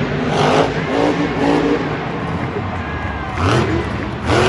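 Monster truck engine running hard, its revs rising and falling several times, with the strongest rev-ups near the end.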